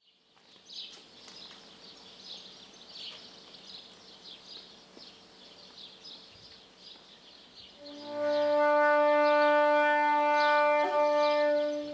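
A wooden transverse flute plays one long held note, starting about eight seconds in, rich in overtones, with a brief flick in pitch shortly before it ends. Before it there is only faint, high chirping in the background.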